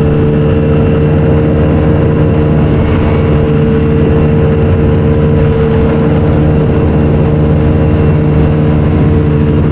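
Engine of a small over-ice vehicle running steadily at constant speed, a loud, even drone with no change in pitch.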